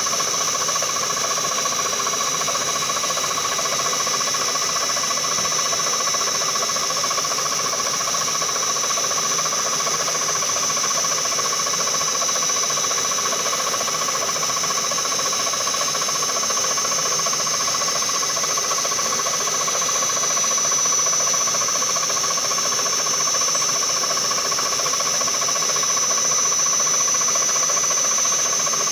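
CNC milling machine running steadily: a constant high whine with several steady tones over a hiss, without a break or change.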